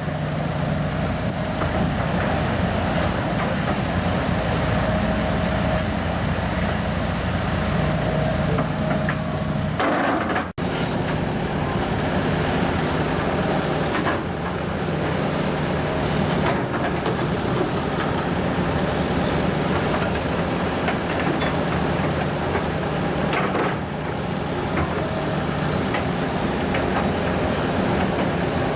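Hitachi ZX210LC hydraulic excavator's diesel engine running steadily under working load, with a few short hisses. The sound drops out for an instant about a third of the way through.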